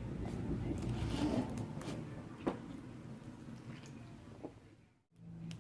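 A person gulping down a drink from a bottle, with wet swallowing noises loudest over the first two seconds, then fading out near the end.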